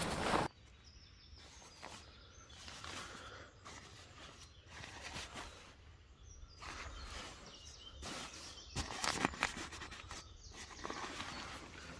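Nylon bivy bag and sleeping bag rustling as a hand handles them and presses the inflatable air mat, with a few soft clicks and the loudest rustling about eight to nine seconds in. Faint birdsong in the background.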